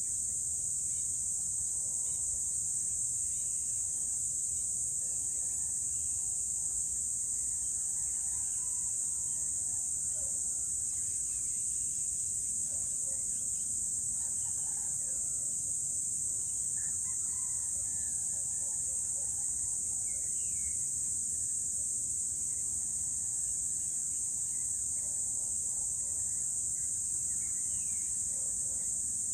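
A steady, high-pitched insect chorus, with faint distant rooster crows and other bird calls scattered through it.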